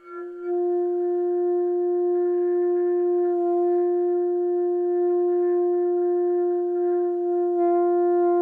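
Saxophone played by a learner, sounding one long steady held note.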